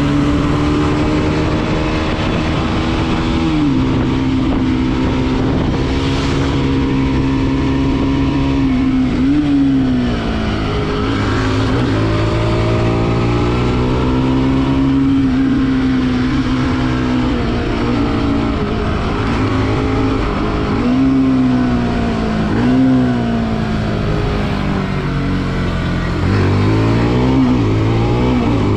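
Bajaj Pulsar NS200's single-cylinder engine running at steady cruising revs while riding. The pitch dips briefly and climbs back several times as the revs change.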